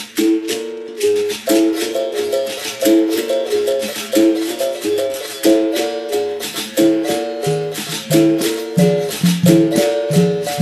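Instrumental opening of a capoeira song: berimbaus struck in a repeating rhythm with the buzz of the caxixi rattle. A lower-pitched berimbau joins about seven seconds in.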